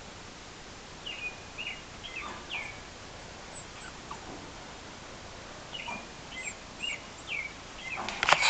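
A series of short, high chirping squeaks in two quick groups. Near the end comes a loud burst of rattling clatter as the beagle pup jumps up against the wire-mesh pen.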